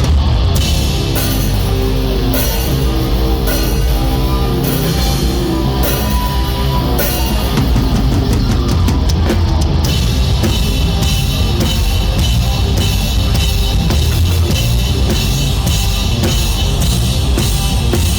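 Rock band playing live, with the drum kit to the fore: kick drum and cymbals keeping a steady beat, a quick run of hits about seven seconds in, then a busier beat from about ten seconds.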